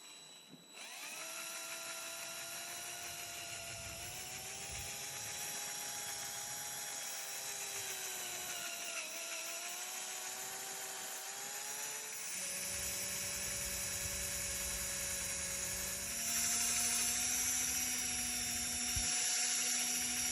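Power drill spinning a pad against a plastic headlight lens, its motor whine starting about a second in and shifting in pitch several times as speed and pressure change. The pad is wearing away the lens's oxidized, hazy surface.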